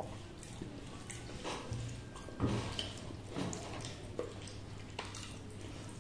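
Eating by hand. There is soft wet smacking and squishing of fingers in rice and curry on steel plates, with chewing and finger-licking. A few small clicks and a louder smack come about two and a half seconds in, over a low steady hum.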